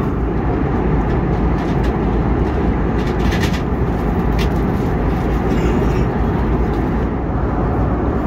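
Steady cabin noise of an Airbus A321neo in cruise: the low rumble of the engines and the airflow past the fuselage, heard from a window seat over the wing. A couple of faint brief higher sounds come about three and four seconds in.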